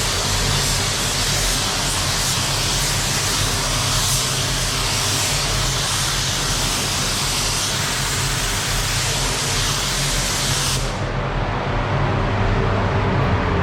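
Compressed-air paint spray gun hissing steadily as paint is sprayed, over a steady low hum; the spraying stops about eleven seconds in, leaving only the hum.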